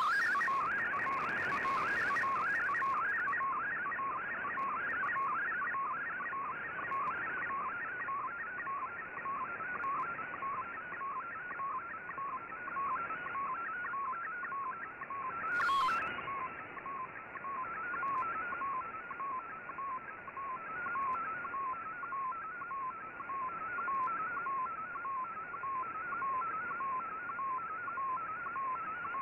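Shortwave digital picture transmission (Fldigi MFSK image) received in AM on an Icom IC-R8600: a warbling tone that repeats its pattern over and over as a colour image is sent line by line, over a bed of radio hiss. One brief crackle of static comes about halfway through.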